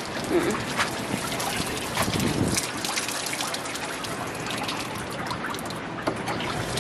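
Water running from an outdoor foot-rinse shower, splashing onto slatted wooden deck boards and over a foot in a sandal.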